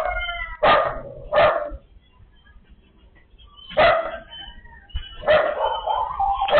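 Dog barking: about five or six short, loud barks, singly and then in a quick cluster near the end, with brief quiet gaps between.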